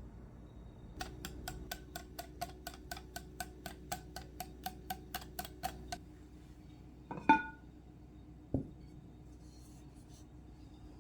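Rapid, even clicking, about four clicks a second for some five seconds. Then a single louder clink that rings briefly, and a dull knock.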